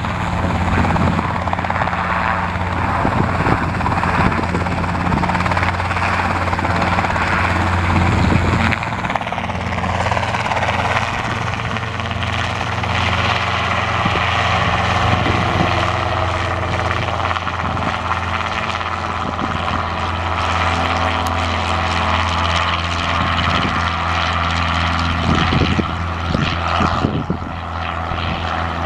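Robinson R22 Beta piston helicopter running close by: a steady engine and rotor drone with a strong low hum. Its high hiss eases off about nine seconds in.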